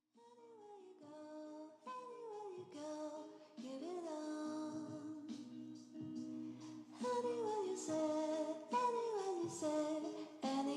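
Background music with a woman singing a melody of sliding notes. It gets louder about seven seconds in.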